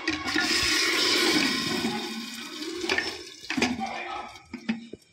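Hot-oil tempering (tadka) of onion, garlic, green chili and cumin starting to sizzle all at once with a loud hiss that dies down over about three seconds. Then two sharp clanks of a utensil.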